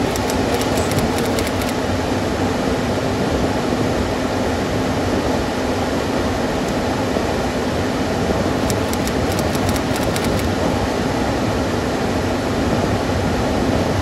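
Gas furnace fan running steadily, a constant rush of air with a low hum, early in a heat-call start-up with the igniter heating. Two brief clusters of faint ticks come near the start and again about nine seconds in.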